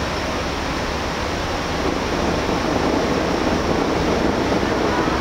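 Fireworks finale barrage: many shell bursts and crackles blurring into one dense, continuous rumble with no single bang standing out, growing a little louder about two seconds in.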